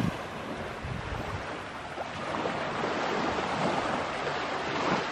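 Small waves washing onto a sandy beach, a steady surf noise that swells a little near the end, with light wind rumbling on the microphone.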